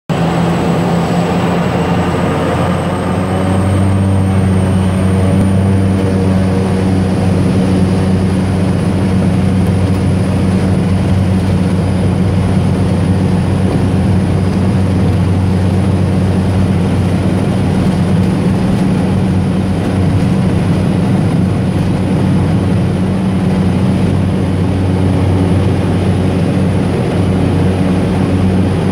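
Single-engine light aircraft's piston engine and propeller heard from inside the cockpit, a steady low hum. The engine comes up to higher power about four seconds in and then runs steadily through the takeoff roll.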